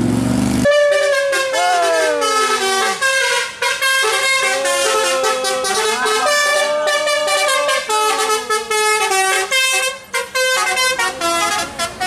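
Tour bus's Basuri telolet horn playing a long melody of changing multi-tone notes, some of them sliding, starting abruptly under a second in with only brief breaks.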